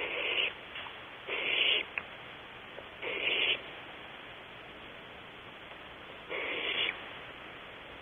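Barn owl nestlings giving rasping, hiss-like begging calls: four separate calls of about half a second each, the last after a pause of nearly three seconds.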